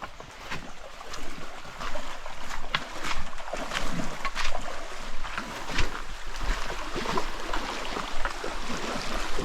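Footsteps crunching and brushing along a jungle trail: irregular crackles and scuffs over a rushing hiss, getting louder about a second in.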